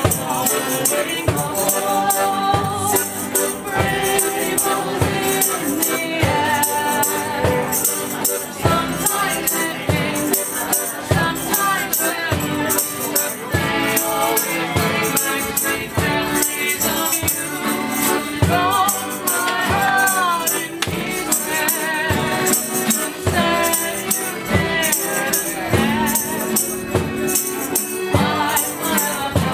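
Live acoustic folk band playing a lively tune: accordion, banjo, guitar and upright bass over a steady beat.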